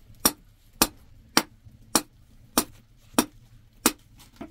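Sharp, hard knocks struck at a steady pace, about one every 0.6 seconds, seven in a row, as something is struck repeatedly by hand at a plastic bucket.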